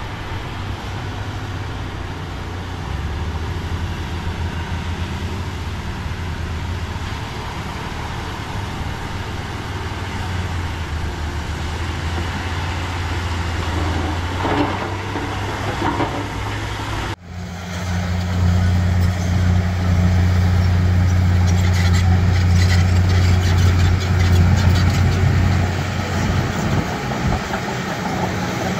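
Heavy earthmoving machine's engine running steadily with a deep drone. After an abrupt cut about two-thirds of the way through, the engine is louder and works harder, with a stretch of rapid metallic clanking and rattling.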